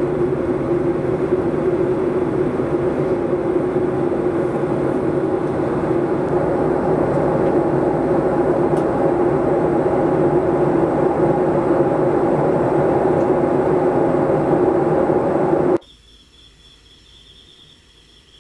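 Steady cabin noise of a Boeing 737-800 airliner in flight, a dense even rumble that cuts off abruptly about 16 seconds in. After it, only faint insect chirping remains, a high pulsing trill.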